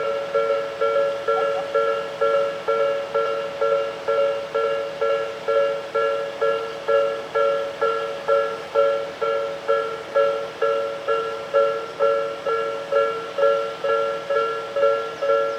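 Japanese railroad crossing warning bell ringing steadily at about two strikes a second. Each strike is a two-note electronic ding that dies away before the next.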